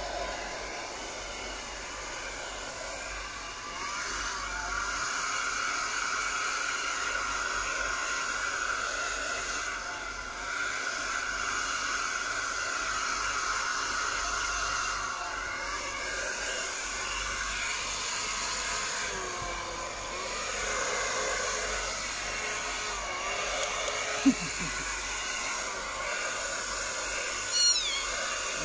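Handheld hair dryer blowing steadily, a little louder from about four seconds in, as it dries a wet Persian kitten's fur. A few short kitten mews come through over it, the loudest near the end.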